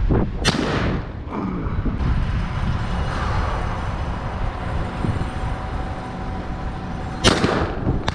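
Two shotgun shots about seven seconds apart, the first about half a second in and the second near the end, each a sharp report with a short trailing echo.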